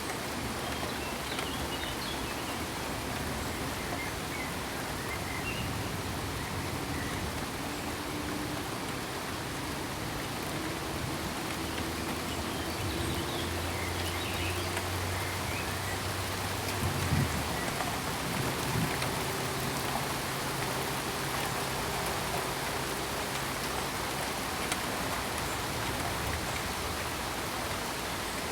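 Steady rain falling, an even patter throughout. A low steady hum sounds faintly under it through the middle part, with a couple of brief knocks around its midpoint.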